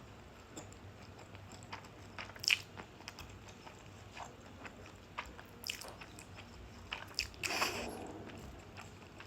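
Close-up mouth sounds of someone eating instant spaghetti: many small wet chewing clicks, a few sharper louder ones, and a longer, louder noisy sound about three-quarters of the way through.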